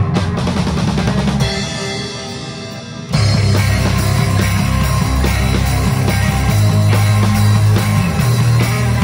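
Instrumental post-rock/stoner rock trio of electric guitar, bass guitar and drum kit playing live. About a second and a half in, the bass and drums drop out, leaving a quieter stretch of held guitar tones. About three seconds in, the full band crashes back in with a steady, driving drum beat.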